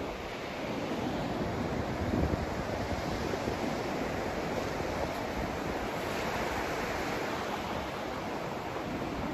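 Continuous rushing white noise from a sleep-aid noise track, an even hiss with no tones in it, swelling slightly about two seconds in.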